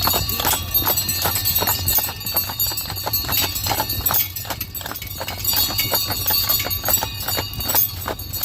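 Horse hooves clip-clopping in a quick, uneven rhythm as the horse pulls a sleigh, with sleigh bells jingling steadily.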